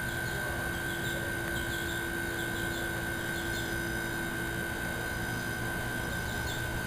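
Steady hum with a constant high-pitched tone over a hiss, with faint short high chirps now and then.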